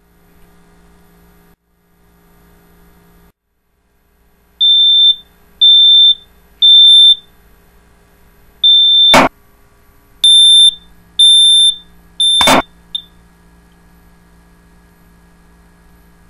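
Smoke alarm beeping loudly in piercing, high, half-second beeps that start a few seconds in: three in a row, a short pause, then four more and a brief last blip before it stops. Two loud sharp knocks land among the beeps, the second near the end.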